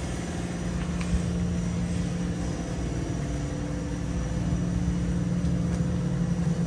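Square-body Chevrolet pickup's engine idling steadily, an even low rumble.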